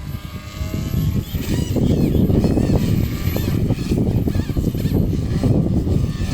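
Small electric RC helicopter (Logo 200) running up: a faint rising whine in the first second, then about a second in a loud, rough, rattling rotor-and-drive noise. This is the abnormal noise the helicopter is making.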